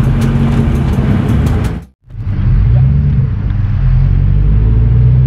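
Straight-piped 2006 Ford GT's supercharged V8 running loud under way. The sound drops out briefly about two seconds in, then returns with the engine note rising a little as the car pulls.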